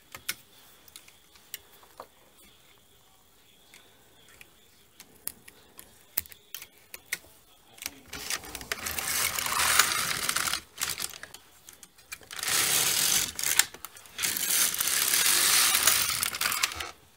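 Small scattered clicks as stitches are moved on the needles with a transfer tool for a raglan increase. Then the carriage of an LK150 knitting machine is pushed across the needle bed to knit rows: a loud, rasping clatter in three stretches, about 8, 12 and 14 seconds in.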